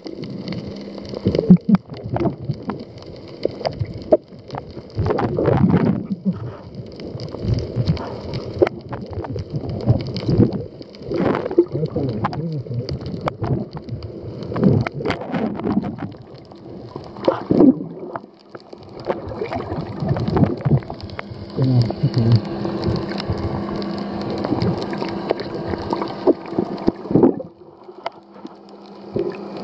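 Muffled water sloshing and bubbling around a camera held underwater, in irregular surges with sharp knocks. A steady low hum joins in past the middle and fades near the end.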